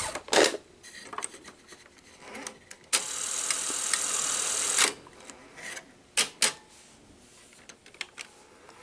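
Sony SL-100 Betamax VCR's cassette basket and loading mechanism at work: a steady whir for about two seconds in the middle, with sharp clicks before and after. The owner puts the mechanism's trouble down to lubrication.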